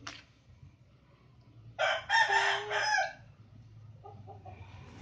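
A rooster crowing once, about two seconds in, the call lasting a little over a second in a few connected parts.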